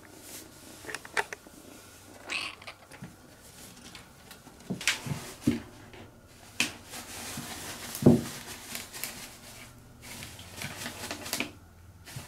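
Siamese-type kitten purring and moving about, with scattered small clicks and knocks, and a short louder sound about eight seconds in.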